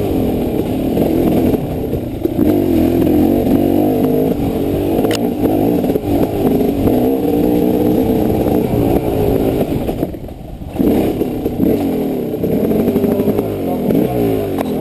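Dirt bike engine revving up and down under hard throttle on a rough trail, heard from the rider's helmet. There is a sharp knock about five seconds in, the throttle closes briefly about ten seconds in, and the engine winds down near the end as the bike slows.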